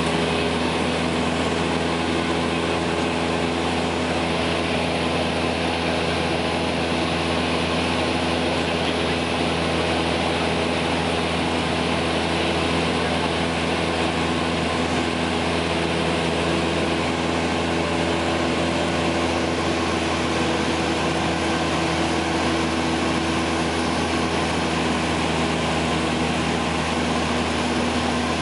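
Steady drone of a small aircraft's engine and propeller with rushing air noise, heard from inside the cabin. The pitch and level hold constant throughout, as in level cruising flight.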